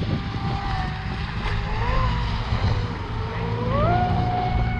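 Electric motor of a radio-controlled speedboat whining as it runs on the water, its pitch wavering and then rising sharply near the end as the throttle opens, over a low rumble.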